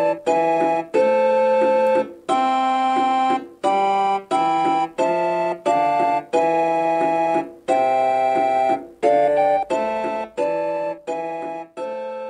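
Keyboard music: a series of held chords, somewhat more than one a second, each cut off briefly before the next.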